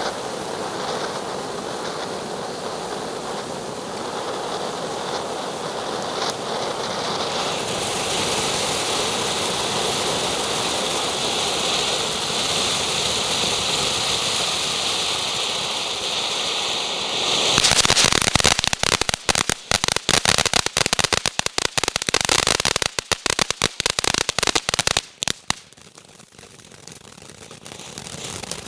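Ground fountain firework hissing steadily as it sprays, growing louder about a quarter of the way in, then breaking into a dense, fast crackle for several seconds before dying down near the end.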